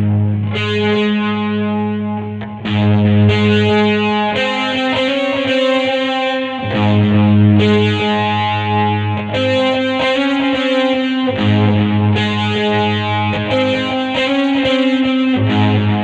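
Squier Vintage Modified Jaguar electric guitar played with distortion, ringing out sustained chords that change every second or two.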